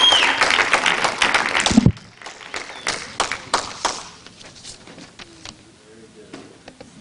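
Audience applauding, breaking off sharply about two seconds in, with a few scattered claps trailing off over the next two seconds.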